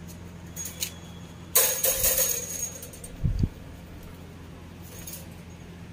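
Metallic jangling and clattering, loudest for about a second starting a second and a half in, with a dull knock a little after three seconds, over a steady low hum.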